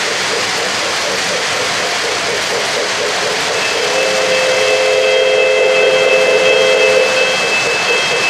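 Freight cars of an O-gauge model train rolling over three-rail track with a steady rumble. About four seconds in, a multi-tone whistle from the train's sound system blows for about three seconds.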